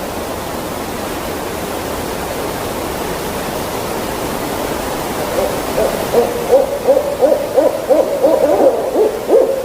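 Animal sound effect: a steady low haze, then about halfway in a rapid run of short, low calls, each dropping in pitch, roughly two a second.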